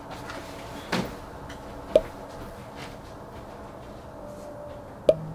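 Quiet room with a soft knock about a second in, then two short, sharp clicks, one about two seconds in and one near the end.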